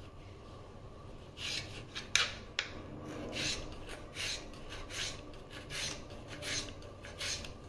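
Kitchen knife slicing a tomato on a cutting board: a run of short cutting strokes, about one every three-quarters of a second, with two sharp taps of the blade on the board about two seconds in.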